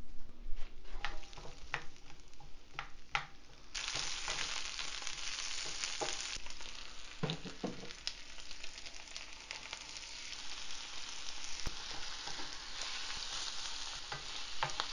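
Zucchini slices sizzling in a frying pan, the sizzle starting suddenly about four seconds in after a few light clicks. Raw shrimp are tipped in with a few soft thumps about seven seconds in and then stirred with a spatula as the frying goes on.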